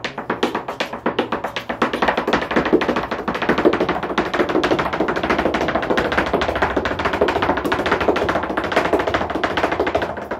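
Flamenco dancer's zapateado: rapid, unbroken heel-and-toe stamping of flamenco shoes on the stage, with flamenco guitar playing underneath.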